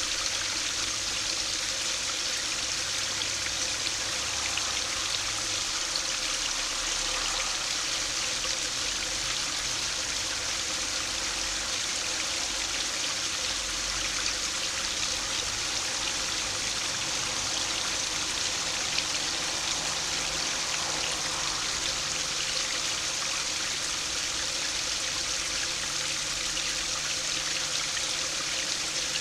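Small stream spilling over a low concrete weir into a shallow pool: steady splashing and trickling of water.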